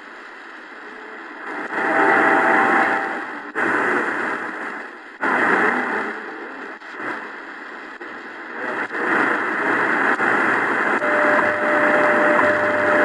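Shortwave static and hiss from the XHDATA D-901 portable radio's speaker as it is tuned up the band, the noise dropping out briefly at each tuning step. About eleven seconds in, a steady tone comes in: the standard tone of time station WWV on 5 MHz.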